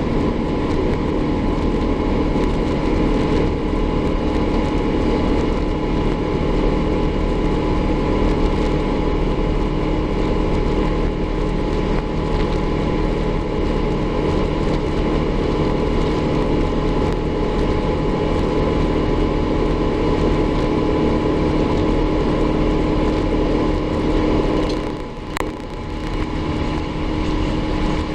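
Cabin noise of an Airbus A350-900 from a window seat: the Rolls-Royce Trent XWB engines and airflow make a steady roar with several constant humming tones. About 25 seconds in, the sound dips briefly with a sharp click, then steadies again.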